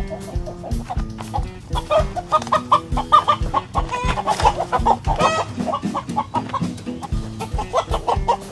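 Chickens clucking and squawking over background music with a steady beat, the loudest squawks about four to five seconds in.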